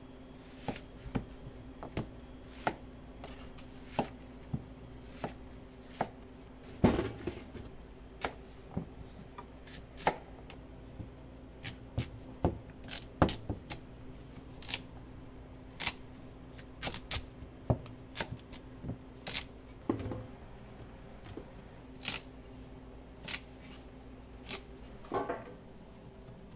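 Chef's knife chopping onion and carrots on a plastic cutting board: irregular sharp knocks of the blade striking the board. A steady low hum runs underneath.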